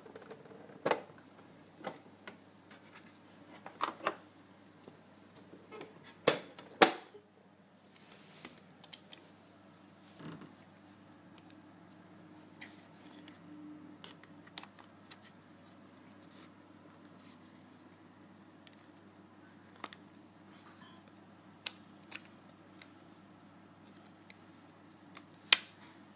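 Scattered sharp plastic clicks and knocks from a Hoover Alpina 2 cylinder vacuum cleaner being handled, loudest as a pair about seven seconds in and once near the end, over a faint steady hum.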